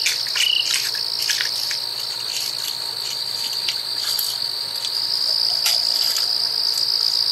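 A steady, high-pitched chorus of night insects, crickets, trilling without a break. Near the start a lower chirp repeats about twice a second and stops about half a second in.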